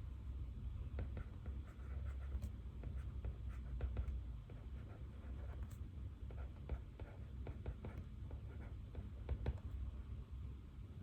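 Pen writing on paper: an irregular run of small scratches and ticks, over a steady low room hum.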